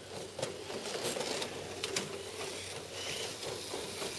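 Kyosho dNaNo 1/32-scale electric RC cars racing past, a buzzy whirr of their tiny motors and gears mixed with scattered quick clicks and ticks.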